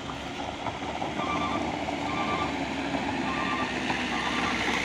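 Heavy truck engine running steadily on a climb, growing a little louder. Over it, a short beep repeats about once a second.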